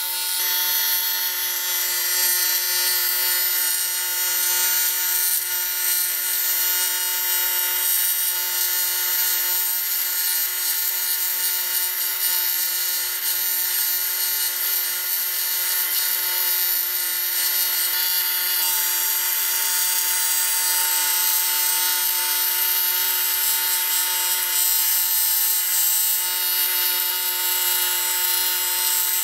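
TIG welding arc on an aluminium cylinder head, burning steadily with a constant buzz over a high hiss as cracks in a combustion chamber are welded up.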